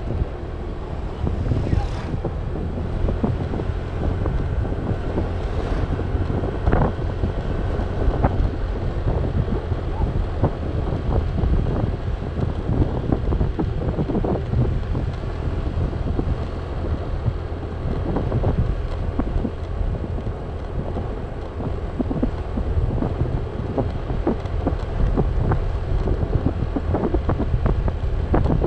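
Wind rushing over the microphone of a Honda scooter rider at about 45 km/h, a steady low rumble with frequent short buffeting thumps, the scooter's running and tyre noise underneath.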